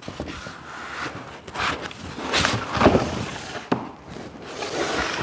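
Cardboard box and foam packing being handled: rustling and scraping with a few sharp knocks about halfway through, as a bundle of drone propellers in foam blocks is set back into its box.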